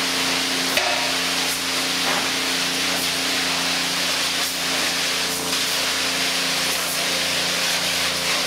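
Self-serve car wash pressure wand spraying water, a steady hiss, with a steady low hum underneath.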